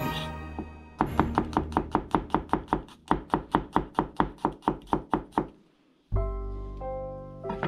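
Chef's knife slicing garlic cloves on a plastic cutting board: quick, even knocks, about six a second, in two runs with a short break between. Background music with held chords comes in about six seconds in.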